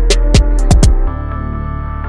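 Electronic backing music with a hard drum-machine beat of deep kicks and sharp hits. About a second in, the drums drop out, leaving a held synth chord over steady deep bass.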